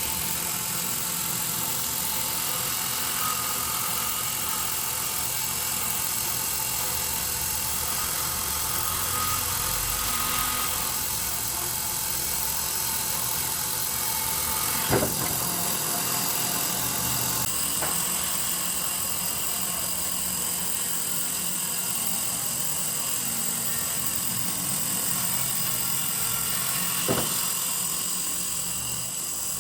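A power tool's motor running steadily at constant speed, with two sharp knocks, one about halfway through and another near the end.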